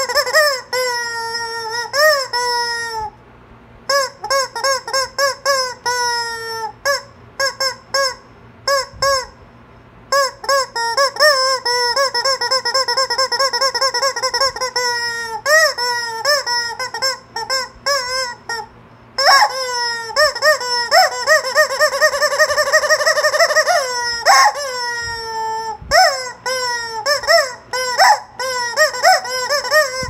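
Yellow rubber chicken squeeze toy squawking as a hand squeezes it again and again: runs of quick, short squeaks mixed with long, drawn-out squawks. The longest squawk is held for several seconds about two-thirds of the way in.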